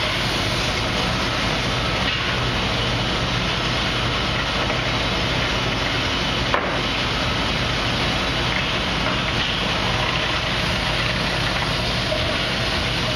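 Steady din of sawmill machinery running, a band sawmill and edger at work, with a single sharp knock about halfway through.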